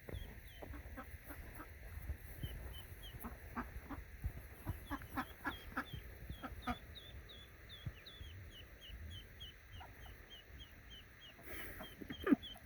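Ducklings peeping: short, high chirps repeating about four times a second throughout, with a cluster of lower, short calls or knocks in the middle.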